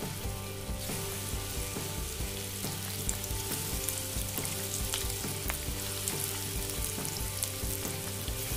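Spinach pakoda batter deep-frying in a pan of hot oil, a steady sizzle with fine crackling that picks up about a second in as more fritters go into the oil.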